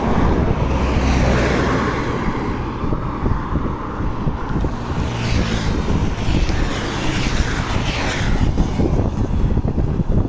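Highway traffic passing close by, cars and a motorcycle going past, with wind on the microphone. A heavy low rumble over the first couple of seconds, then a steady rush with a few passing vehicles between about five and eight seconds in.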